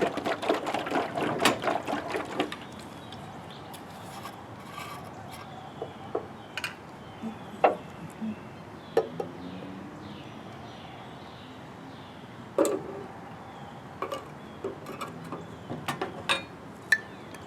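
Paint stripper being brushed on with an old brush: a clatter of jar and brush for the first couple of seconds, then quiet brush strokes with scattered clicks and taps.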